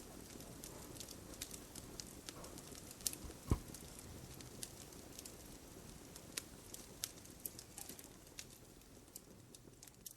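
Wood fire crackling in a fireplace: faint, irregular sharp snaps and pops over a low steady rush, with one louder pop about three and a half seconds in.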